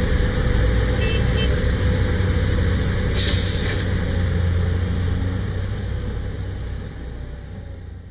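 Cat 320D L hydraulic excavator's diesel engine running steadily as it works a bucket over a dump truck, with a short hiss about three seconds in. The sound fades out near the end.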